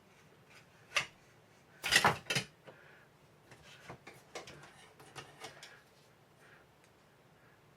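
Parts of a partly disassembled Daisy 880 air rifle being handled: a sharp click about a second in, a louder clatter of knocks around two seconds, then scattered lighter taps and clicks.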